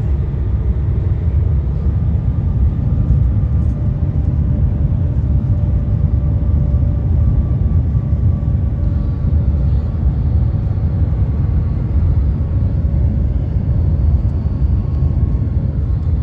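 Shanghai maglev train running at about 380 km/h, heard inside the cabin: a loud, steady low rumble with a faint steady whine above it.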